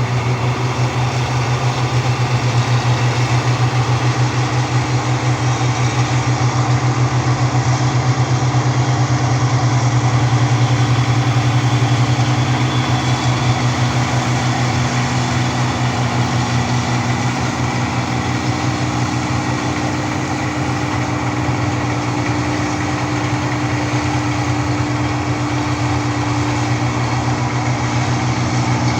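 Rice combine harvester's engine running steadily, with a constant low hum.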